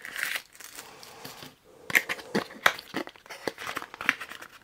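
Cardboard and paper packaging rustling and scraping as a small accessory box is unpacked by hand, with a small plastic bag crinkling. A quick run of short scrapes and taps starts about two seconds in.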